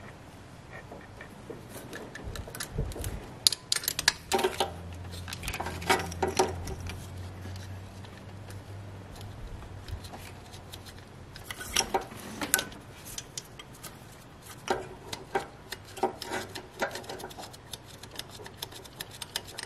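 Bursts of quick metallic clicking and clinking from hands and tools on the mounting bolts of a new water pump, in three spells, as the bolts are started before tightening. A faint low hum runs under the first half.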